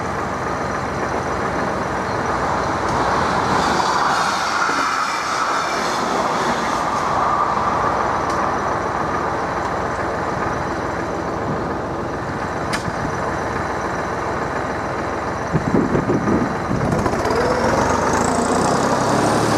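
Steady road-vehicle noise at a level crossing, as waiting cars idle and then drive over the tracks. A short, uneven low rumble comes about sixteen seconds in.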